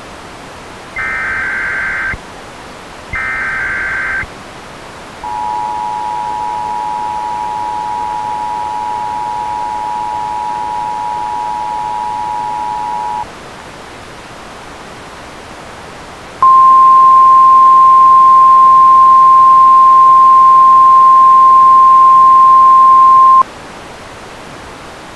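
Emergency Alert System signal: two short screeching digital data bursts (the end of the SAME header), then the EAS two-tone attention signal held for about eight seconds, then after a pause a single louder steady tone for about seven seconds, all over a steady hiss.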